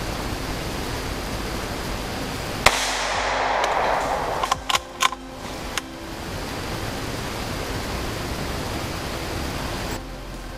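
A single .17 HMR rifle shot about two and a half seconds in, followed by a few short sharp clicks over the next three seconds, over a steady hiss.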